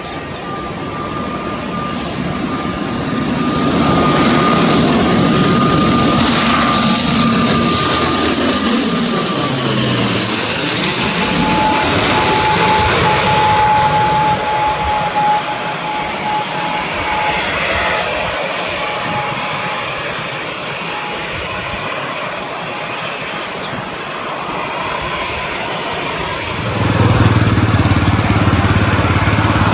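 ATR 72 twin-turboprop airliner passing low overhead on landing approach. Its engine and propeller noise swells, and its steady whine drops in pitch as it passes, about ten seconds in, then slowly fades. Near the end a louder, steady low hum starts: a jet airliner, an Airbus A321, taxiing close by with its engines at idle.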